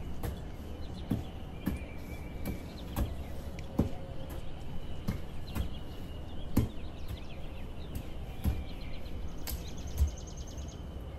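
A fork being jabbed into raw potatoes on a baking tray: irregular sharp taps and knocks, roughly one a second, a few of them louder.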